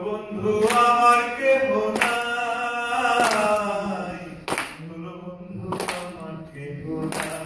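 A man singing unaccompanied into a microphone, holding long notes that slide between pitches. Sharp claps keep time about every second and a quarter.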